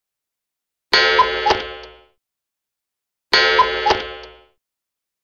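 Subscribe-button animation sound effect: a bright chime that starts suddenly with two small pops in it and fades out over about a second, sounding twice.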